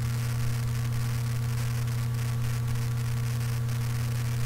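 Steady low electrical hum with hiss and faint crackle from a microphone whose noise suppression is switched off.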